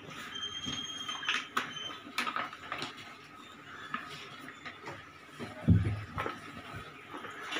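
Handling noise of kitchen containers: a few light clicks and knocks in the first couple of seconds, then one dull thump about five and a half seconds in.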